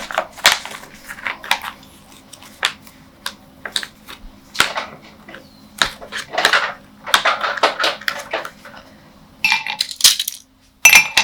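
Kitchenware clinking and knocking: an irregular series of sharp hard knocks and short scrapes, as dishes and utensils are handled.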